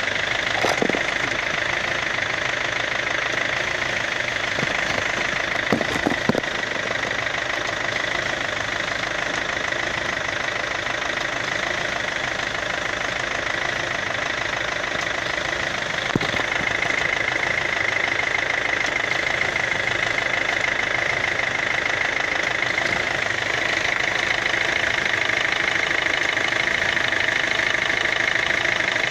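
Kia Ceed running with a steady mechanical noise and a few sharp knocks, about a second in, twice around six seconds and once around sixteen seconds. The owner suspects the knock comes from the automatic transmission or a worn right inner CV joint.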